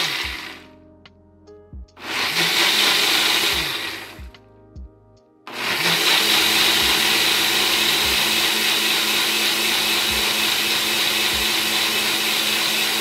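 Ninja Auto-iQ blender blending peanuts with coconut and almond milk on an automatic programme, in the pulse-and-pause pattern of such programmes. The blending stops about half a second in, runs again for about two seconds, pauses, then runs steadily from about five and a half seconds in.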